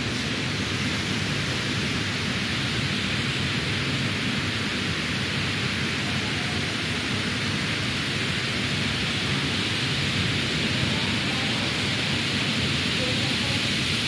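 Steady rush of water sheeting down a tall man-made water wall, an even hiss with no breaks.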